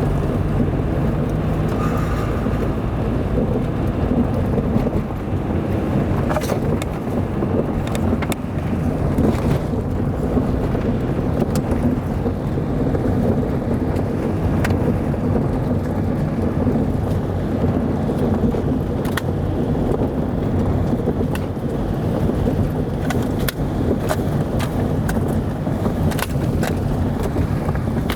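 Car driving on a dirt road: a steady low rumble of tyres and engine, with scattered sharp knocks and rattles from the rough surface.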